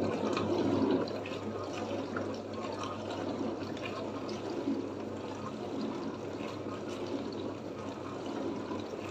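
Dishwasher running on a test cycle after repair: steady water sloshing and spraying inside the tub over the low, even hum of its pump motor.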